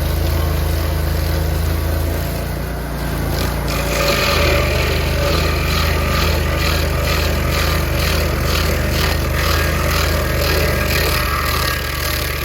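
An engine running steadily with a low hum. From about four seconds in, a regular clatter repeats roughly twice a second.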